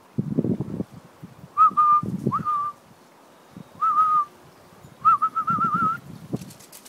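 A person whistling four short notes, the last one longer and warbling, to call a Cairn Terrier puppy. Low thuds come underneath.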